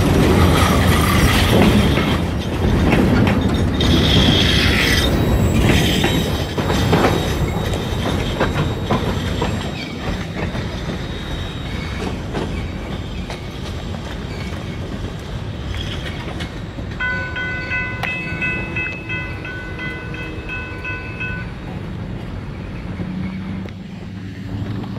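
Freight train cars rolling past close by, wheels clattering over the rail joints, loud for the first several seconds and then dying away as the train moves on. Toward the end, a high ringing tone repeats rapidly for about four seconds.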